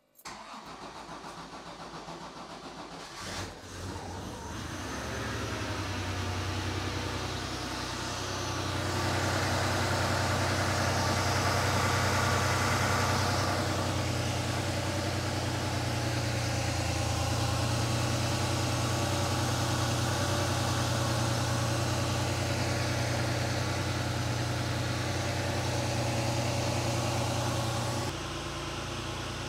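Porsche 911 3.2 Carrera air-cooled flat-six starting for the first time on newly fitted fuel injectors. It catches about three seconds in and settles into a steady fast cold-start idle.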